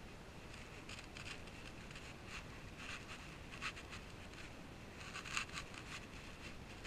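Faint, irregular rustling and scratching, in small clusters of soft scrapes, over a steady faint hiss; the loudest cluster is about five seconds in.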